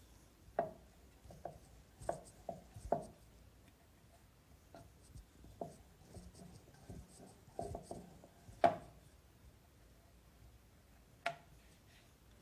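Wooden rolling pin rolling out chapati dough on a round wooden board: soft rubbing broken by scattered short wooden knocks, the loudest a little after halfway.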